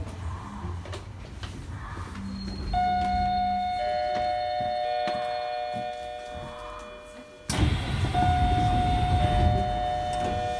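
Inside an Osaka Metro Midosuji Line subway car pulling into a station, the train's running rumble fades as it slows to a stop. A three-note electronic chime sounds, its notes coming in one after another and held. Past the middle the doors open with a sudden rush of sound, and the chime sounds again.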